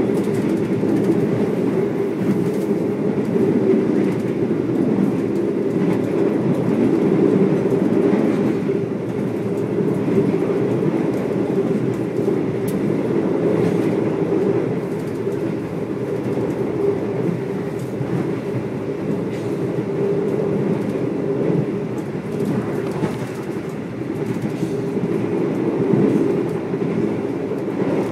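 Passenger train running at speed, heard from on board: a steady rumble of the wheels on the rails, with faint clicks.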